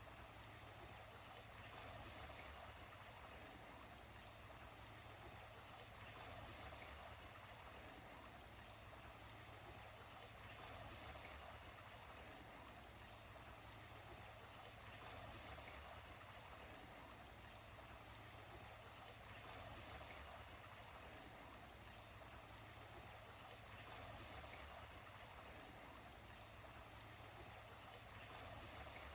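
Creek water flowing, a faint steady trickle and babble.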